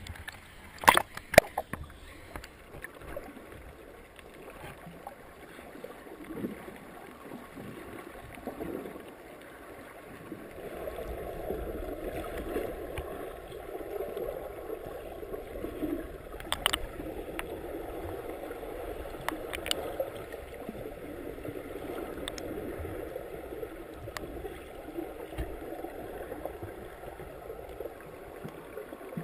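Muffled water sound heard through a GoPro's waterproof housing underwater: a couple of sharp splashes about a second in as the camera goes under, then a steady dull wash of water noise from about ten seconds in, with a few faint clicks.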